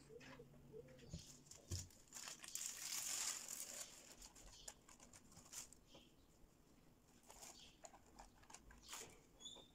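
Plastic film crinkling as it is peeled and handled, loudest for a couple of seconds about two seconds in, followed by scattered light clicks and taps. A dove coos faintly at the very start.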